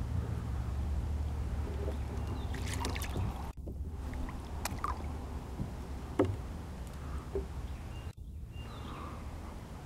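Light knocks and handling noise against a plastic kayak as a small fish is brought in on a line, over a low steady rumble that eases after about three and a half seconds. The loudest knock comes about six seconds in.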